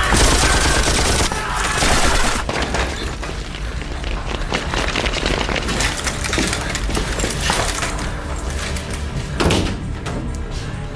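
Film gunfight soundtrack: dense volleys of gunfire with heavy booming impacts, loudest bursts at the start, about two seconds in and near the end.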